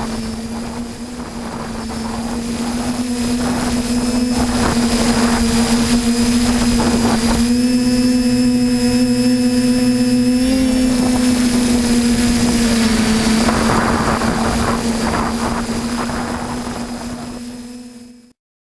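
A loud, steady machine drone holding one pitch with noisy rushes over it, cutting off suddenly near the end.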